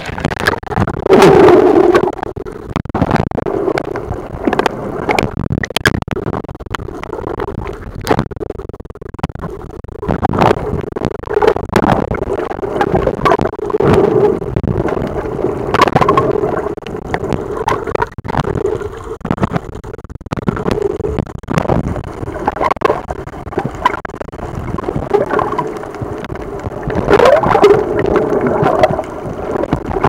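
Sea waves breaking and surging, heard underwater: a muffled rushing and gurgling of churned water with many sharp clicks and pops, swelling in uneven surges that are loudest about a second in and near the end.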